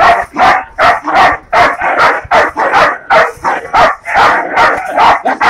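Belgian Malinois barking aggressively in rapid, repeated barks, about three a second, in guard barking at an intruder at the fence.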